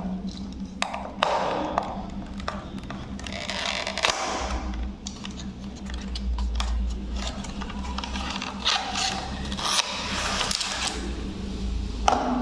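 Handling noises from opening a cardboard earphone box: irregular clicks, scrapes and rustles of the packaging being worked open, over a steady low hum.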